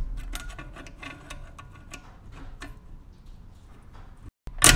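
Small metallic clicks and taps of a screwdriver and steel parts against an aluminium automatic transmission case as a part is worked into place, with a sharp metal clank that rings briefly near the end.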